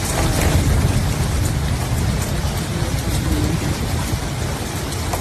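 Hailstorm: hail and rain pelting down in a dense steady roar, with many sharp strikes and a heavy low rumble underneath.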